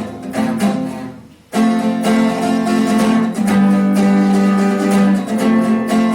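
Acoustic guitar strummed; the chords die away almost to nothing about a second and a half in, then the strumming comes back in sharply and carries on.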